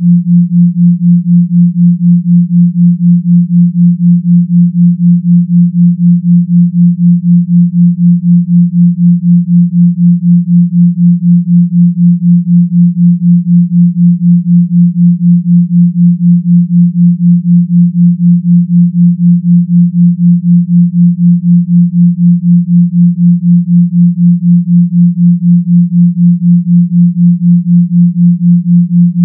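A steady low pure tone near 174 Hz, made of 172 Hz in one ear and 176 Hz in the other, pulsing evenly about four times a second. This is a 4 Hz binaural beat.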